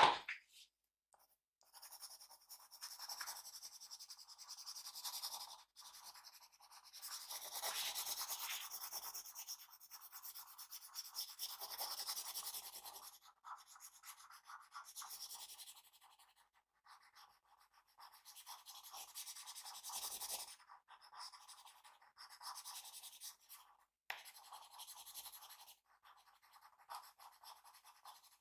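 A drawing tool scratching and rubbing on paper in irregular strokes, with short pauses between them.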